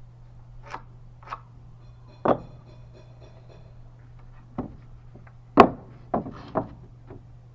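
Irregular knocks and clacks of wood and tools being handled, about eight in all, the loudest about two-thirds through.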